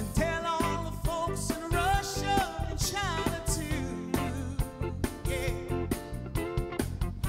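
Live soul band playing an upbeat number: drum kit, electric bass and a horn section of saxophone, trumpet and trombone, with a steady drum beat under sustained notes that waver with vibrato.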